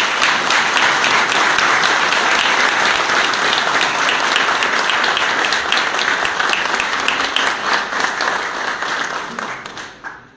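A group of people applauding, steady clapping that dies away near the end.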